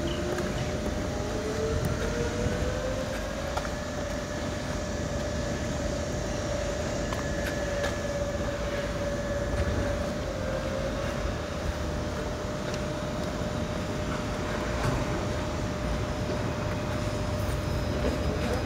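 A vehicle running, with a whine that rises in pitch over the first few seconds and then holds steady over a constant background rumble.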